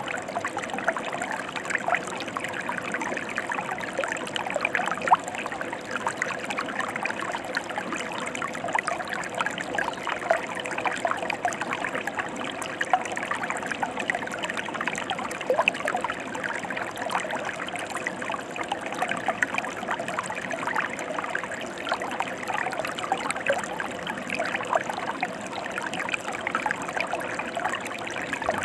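Mountain stream water flowing steadily, with constant small splashes and trickles.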